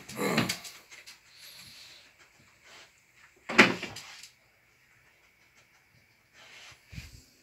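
Two short knocks with a rustle after each, about three seconds apart, then a couple of dull low thumps near the end, as things are moved about by hand.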